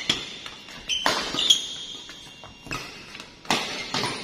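Badminton rally: sharp racket strikes on the shuttlecock, about four, roughly a second apart, with high squeaks of court shoes on the floor between them.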